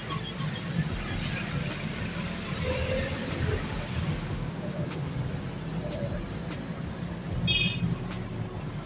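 Busy street ambience: a steady rumble of road traffic with indistinct voices in the background, and a few short high tones near the end.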